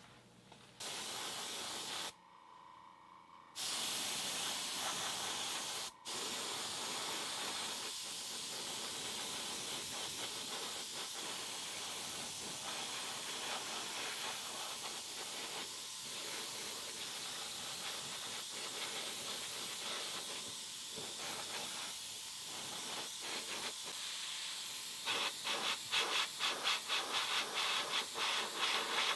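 Gravity-feed airbrush spraying a light dusting of paint: a steady hiss of air that starts about a second in and is broken twice early on. Near the end it turns into short quick bursts, about three a second.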